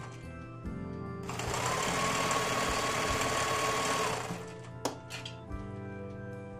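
Sewing machine stitching for about three seconds, its motor whine rising and then holding a steady pitch before it stops, followed by a sharp click. Soft background music plays throughout.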